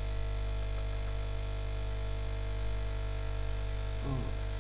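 Steady electrical hum and buzz from powered bench equipment: a low mains drone with many fainter steady tones above it, unchanging throughout.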